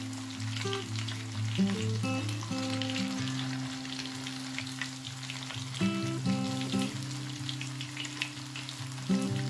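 Murrel fish slices shallow-frying in hot oil, a steady dense sizzle and crackle, the fish nearly cooked through. Sustained low background music notes run underneath.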